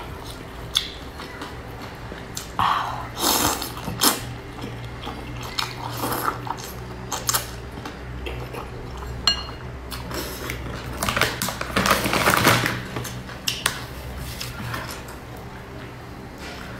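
Close-up eating sounds: wide flat noodles being slurped and chewed, with chopsticks clicking against a ceramic bowl. A few longer, louder slurps come about three seconds in and again around eleven to thirteen seconds.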